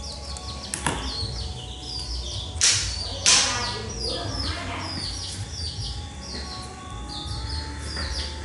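Duckling peeping: a steady string of short, high chirps, each falling in pitch, two or three a second. Two short, loud, noisy bursts come close together about a third of the way in.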